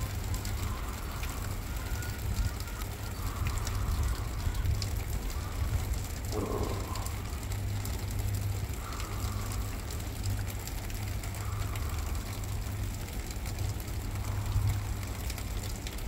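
Light rain pattering and dripping as many scattered small ticks, over a steady low rumble. There is one brief, louder rustle about six and a half seconds in.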